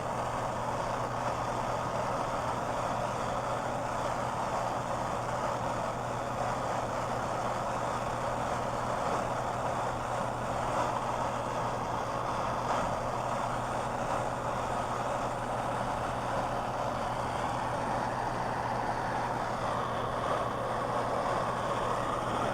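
Handheld gas torch flame running with a steady hiss while it heats a copper pipe joint for soldering.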